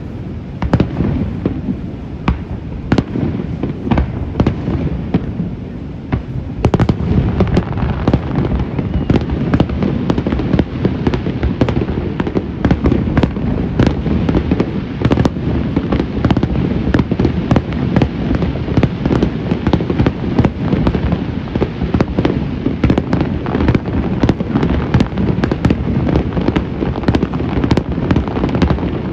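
Aerial fireworks going off in quick succession: sharp bangs over a constant rumble and crackle, thickening into a near-continuous barrage about a quarter of the way in.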